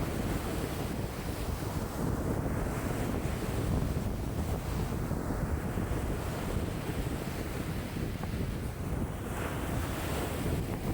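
Lake waves washing in, in a strong wind (about 5 m/s), with wind buffeting the microphone as a constant low rumble. The hiss of the water swells and fades every two to three seconds as each wave comes in.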